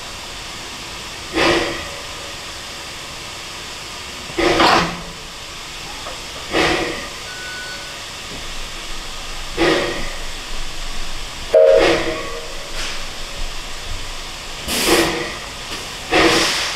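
Narrow-gauge steam locomotive getting under way: exhaust chuffs spaced two to three seconds apart at first, coming faster near the end, over a steady hiss of steam. A loud, short blast with a brief tone comes about two-thirds of the way through.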